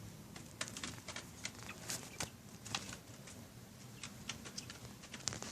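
Faint, irregular light taps and scratches of baby birds moving about and pecking in their enclosure, a few clicks a second.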